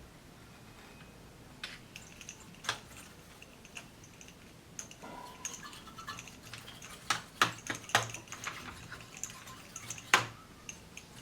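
Irregular sharp clicks and taps of hard plastic parts being handled, sparse at first and closer together in the second half, with the loudest click near the end.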